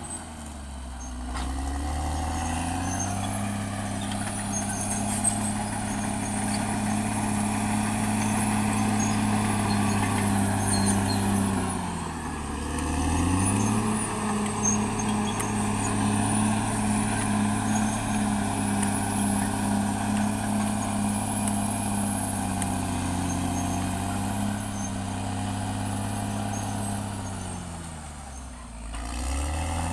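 CAT D6R XL bulldozer's diesel engine running under working load. Its pitch sags and recovers three times: near the start, about twelve seconds in and near the end. A faint high whine rises and falls above it.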